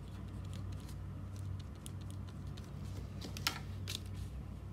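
Pen tip scratching and tapping on paper in short strokes while numbers and brackets are written, with one sharper tick about three and a half seconds in. A steady low hum runs underneath.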